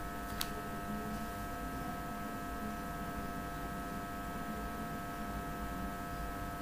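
Steady electrical hum with a few constant high tones, the background hum of the recording setup. There is a single sharp click shortly after the start.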